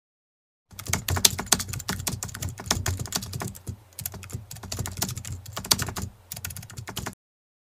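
Computer keyboard typing sound effect: rapid, irregular key clicks that start under a second in and stop abruptly about half a second before the end, with a brief lull near the middle.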